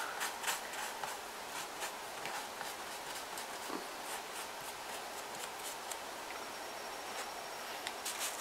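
Faint rustling and scattered small ticks of hands handling and smoothing newspaper strips on a paper mache figure.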